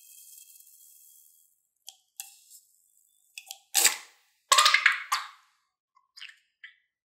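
Scissors snipping into a rubber balloon filled with white slime, a few small clicks, then loud wet squelching and crackling about four to five seconds in as the balloon is cut open and the slime spills out onto a glass dish.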